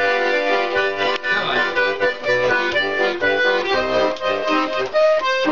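Button accordion playing an instrumental melody with chords over a steady bass rhythm, the notes changing quickly, with a short break near the end.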